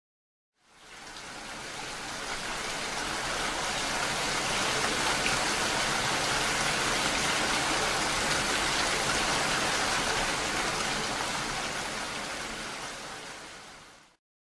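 Steady rain falling, fading in about a second in and fading out near the end.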